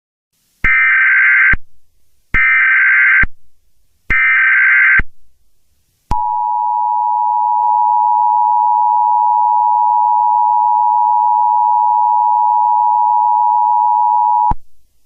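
Emergency Alert System tones: three short bursts of SAME header data, each just under a second, followed by the two-tone EAS attention signal, held steady for about eight seconds and cut off abruptly.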